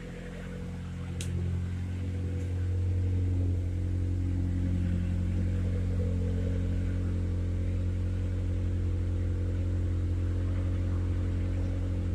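Honda B20B 2.0-litre four-cylinder idling steadily through a newly fitted SRS catback exhaust, getting louder over the first few seconds as the tailpipe is approached. A short click comes about a second in.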